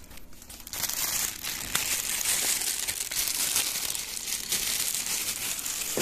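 Clear plastic packaging bag crinkling and rustling as a coiled washing-machine hose is handled and unwrapped from it, starting about a second in.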